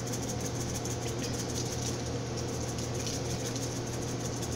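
Dried parsley being shaken from a spice jar: a faint, rapid, light patter of flakes over a steady low hum.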